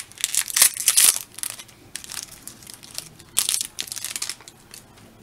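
Foil wrapper crinkling and tearing as it is peeled open by hand, in irregular bursts, loudest through the first second or so and again about three and a half seconds in.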